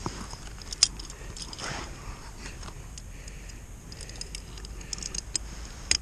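Scattered sharp metal clicks and handling noises as pliers and hook are worked to free a deeply set hook from a catfish's mouth. One louder click comes about a second in and another near the end, with a brief rustle in between.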